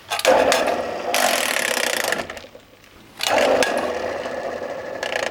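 Metalworking lathe running under power while its spindle speeds are changed: it starts about a quarter second in, runs down to quiet about two seconds in, and starts again about three seconds in, running on in the next gear.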